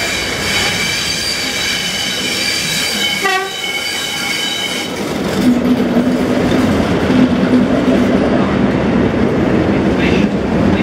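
Class 37 diesel locomotive approaching with the high steady whistle of its English Electric engine's turbocharger. About five seconds in it passes close by, louder, with a low engine drone and the rumble and clatter of wheels on the rails as the test coaches follow.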